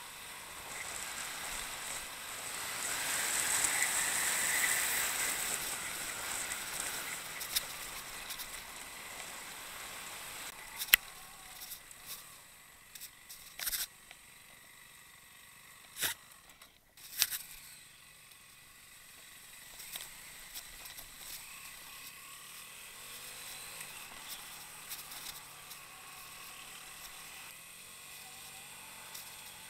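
Motorcycle riding through a shallow creek: a loud rush of splashing water a couple of seconds in, fading over a few seconds. The engine then runs quietly under wind and tyre noise on a dirt track, with a few sharp knocks from bumps.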